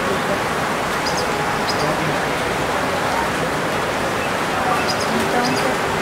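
Steady rain falling on forest foliage, an even hiss with no pauses. Faint short high chirps come twice about a second in and twice more near the end.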